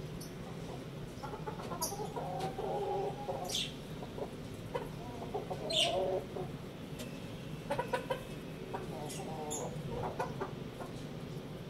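Chickens clucking in short, low runs of calls several times over a steady background hum, with a few brief high squeaks between them.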